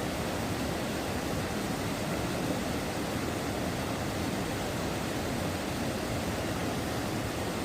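Waterfall rushing: a steady, unbroken noise of falling water, heaviest in the low end.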